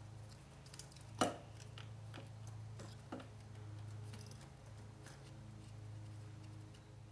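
Faint clicks and taps of hands handling the throttle cables at the linkage of a Yamaha XJ900S carburettor bank, with one sharper click about a second in, over a steady low hum.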